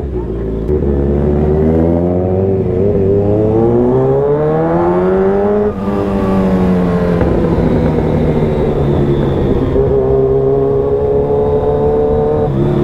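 Kawasaki Ninja 1000 motorcycle's inline-four engine accelerating under way. Its pitch rises steadily for about five seconds, drops at a gear change, then holds a fairly steady, slightly falling note.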